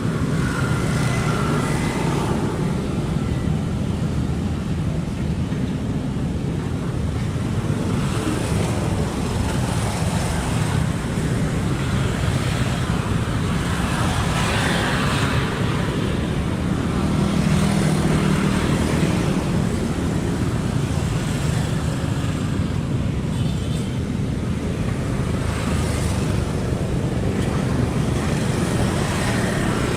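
Kobelco SK75 excavator's diesel engine running steadily under working load, swelling a little louder a couple of times around the middle.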